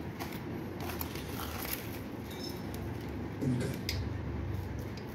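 A few light taps and clinks of a metal spoon against a plate and a glass bowl as puri is torn and chole scooped, over a low steady background hum.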